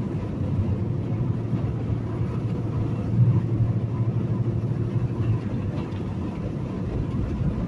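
A semi-truck's diesel engine and tyre noise droning steadily inside the cab at highway speed, with a slight swell about three seconds in.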